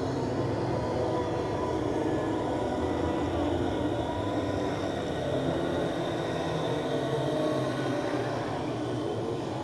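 Ghost moan sound effect: a steady, dense drone of many layered sustained tones, with a few slow, faint pitch glides.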